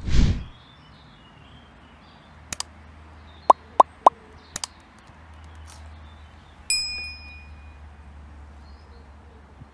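Subscribe-button animation sound effects: a whoosh at the start, a few mouse clicks and three quick pops, then a bell-like ding about seven seconds in that rings out for about a second.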